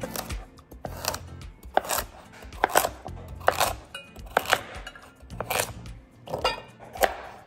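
Chef's knife slicing through peeled raw carrots and striking a plastic cutting board, a series of sharp chops about one a second, some in quick pairs. Background music plays underneath.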